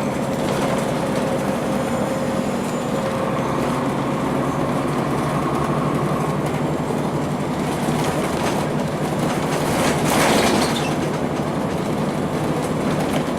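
A 2002 Blue Bird CS transit bus under way, with its Cummins ISC diesel and Allison B400R automatic transmission running steadily over road noise. A short, louder rush of noise comes about ten seconds in.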